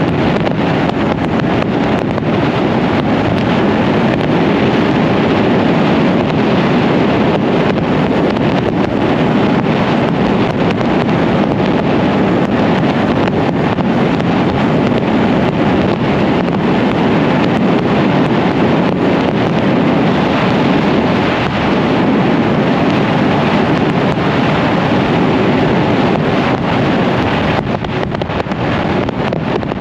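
Motorcycle under way, with steady wind rush buffeting the rider's microphone and the engine buried beneath it; the rush eases a little near the end.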